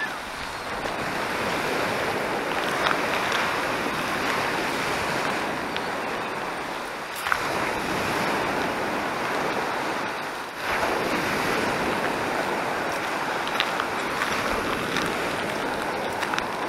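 Azov Sea surf breaking and washing up a sandy shore: a steady rush of water that swells and eases, fading briefly twice, about seven and ten seconds in.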